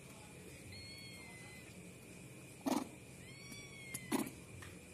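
A kitten mewing twice, each mew a thin, high, nearly level cry about a second long. Two short, sharp thumps, the loudest sounds, come just before and just after the second mew.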